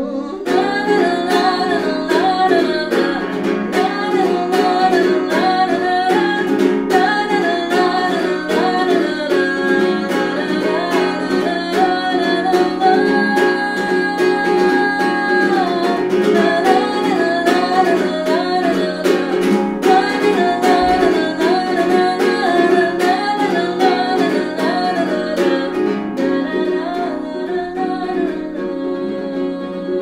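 A small acoustic guitar, ukulele-sized, being plucked in a steady accompaniment, with a wordless melody sung over it.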